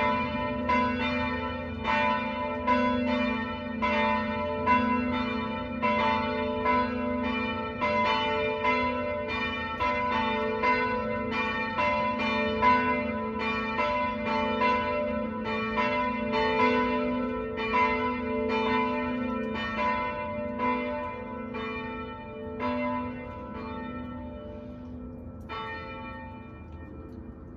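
Church bells ringing in full peal, all the bells together with overlapping, irregular strokes. Over the last few seconds the strokes thin out and stop, and the peal dies away in a fading hum.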